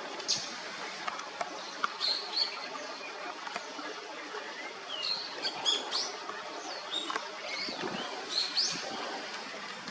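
Short, high bird chirps, many of them in loose clusters about two, five to six and eight to nine seconds in, over a steady rushing background.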